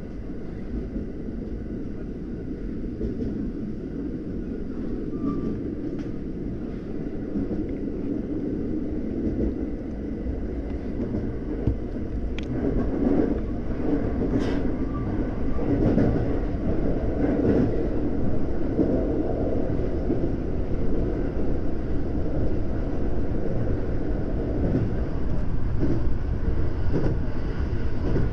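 JR West 521 series electric train running, heard inside its leading car: a steady low rumble of wheels on rails that grows gradually louder as the train gathers speed, with a couple of sharp clicks about halfway through.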